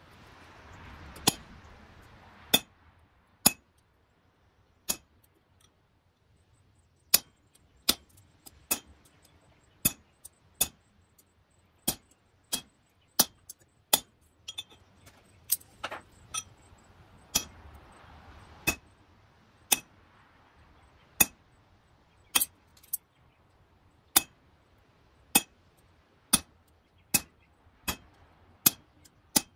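Hand hammer striking a cold chisel held on a steel leaf on the anvil, cutting in its veins: sharp metallic taps with a short ring, about one a second, unevenly spaced.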